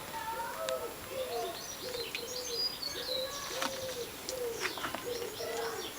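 Birds calling: a steady run of low, arching notes, two or three a second, with higher chirps above them.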